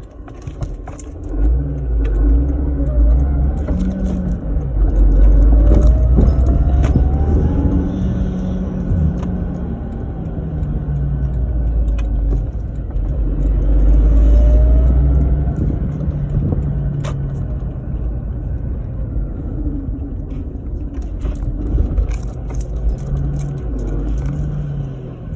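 A supercharged Lexus IS300's 2JZ-GE inline-six accelerating and revving through the gears on low boost. The Powerdyne supercharger's whine rises and falls with the revs. The HKS SSQV blow-off valve, fitted with its Option Fin insert, vents as the throttle closes; the owner finds this sound rather lame.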